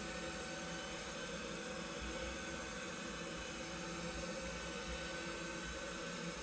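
Hutt DDC55 window-cleaning robot's suction fan running, a steady, even hiss with a faint constant hum, holding the robot to the glass as it wipes with damp cloth pads.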